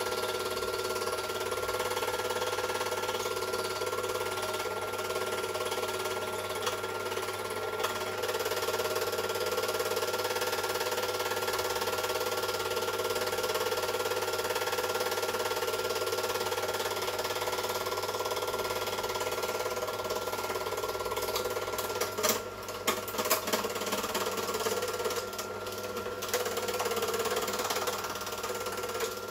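Super 8 film projector running: the steady mechanical whirr and clatter of its motor and film transport. A short run of irregular clicks and dropouts comes about three quarters of the way through.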